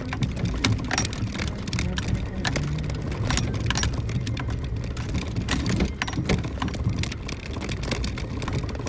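Suzuki Jimny JB64 driving on a rough unpaved forest road: a steady low engine and road rumble with frequent sharp knocks and rattles from stones and the jolting body.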